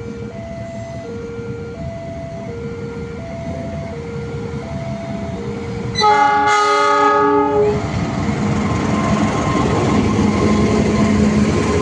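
A level-crossing warning alarm sounds, alternating between two tones. About six seconds in a diesel locomotive's horn blasts for nearly two seconds. Then the rumble of a train hauled by two diesel locomotives grows louder as it approaches.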